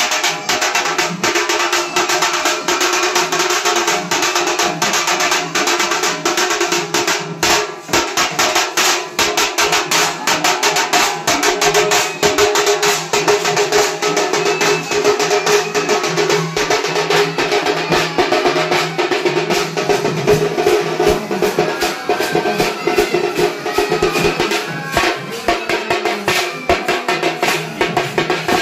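Festival music: fast, steady drumming with a held melody line over it.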